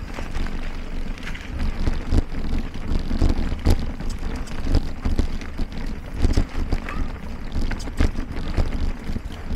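Mountain bike ridden over a dirt forest trail, with the bike knocking and rattling over roots and bumps every second or so, and wind rumbling on the camera microphone.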